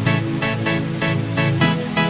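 Electronic dance music with a steady fast beat, about four pulses a second over a held bass line.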